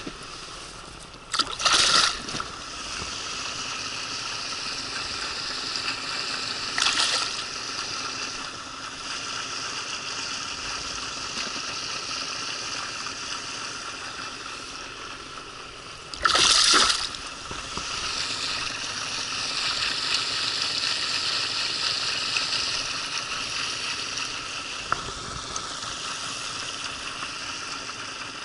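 Water splashing beside an inflatable boat as a small taimen is released: three short, loud splashes, about one and a half, seven and sixteen seconds in, over a steady rushing of the river.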